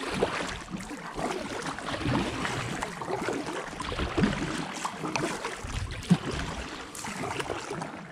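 Kayak paddle strokes splashing, with water dripping and lapping around the hull, and one sharp knock about six seconds in.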